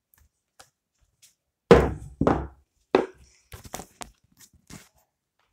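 Handling noise from a phone camera being propped up and set in place: a few heavy knocks and thuds, the loudest about a second and a half in, then a run of lighter taps and clicks.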